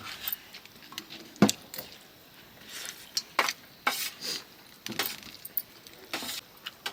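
Dishes and eating utensils clinking and knocking during a meal: a series of short, sharp clinks at irregular intervals.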